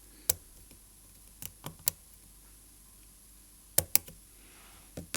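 Small steel tools clicking and tapping against a watch movement: a cannon pinion removing tool being worked on the Omega caliber 565's cannon pinion, which is rusted tight and will not come off. About eight sharp, irregular clicks, the loudest a close pair near the end.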